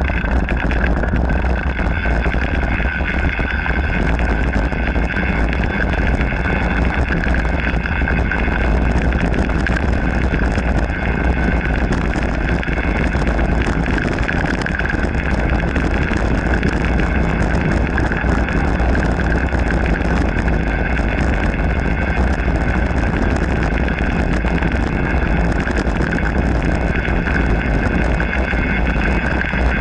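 Mountain bike rolling along a packed dirt trail: steady tyre rumble and rattle of the bike, with a constant hum over it and wind buffeting the action camera's microphone.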